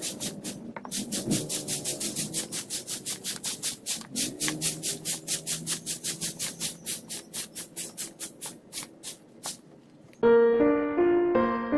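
Broom sweeping sawdust into a plastic dustpan: quick, even scratching strokes, about five a second, that stop about nine and a half seconds in. Piano music starts just after.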